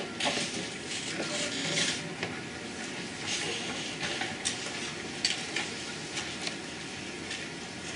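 Dry-erase marker scratching and squeaking on a whiteboard as letters are written, in short irregular strokes.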